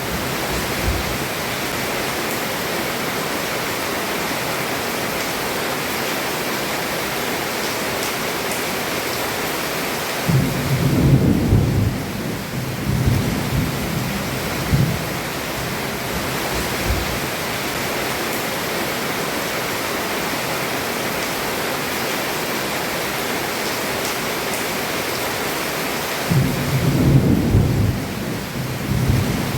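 Heavy rain falling steadily on a roof, with a low roll of thunder about ten seconds in and another near the end.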